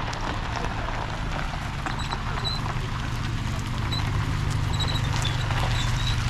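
An engine running with a steady low hum, with several short high chirps over it, about two seconds in and again near the end.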